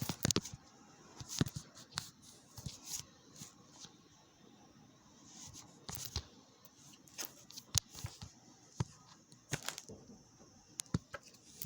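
Irregular small clicks and crackles of handling noise, with a few louder snaps scattered through.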